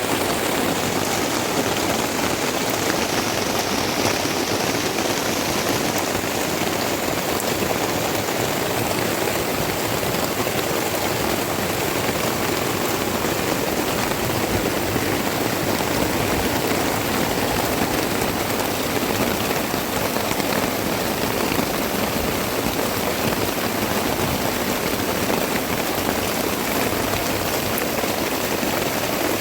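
Heavy rain falling steadily, a dense even hiss of raindrops on surfaces with fine scattered drop ticks.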